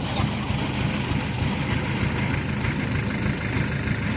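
Heavy farm diesel engine running steadily at a low, even rumble.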